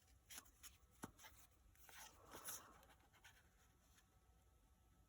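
Near silence with faint rustles and light taps of trading cards being handled, mostly in the first three seconds.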